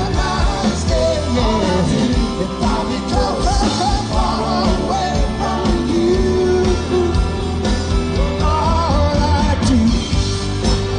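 Rock band playing live, with drums and bass under a bending lead melody line.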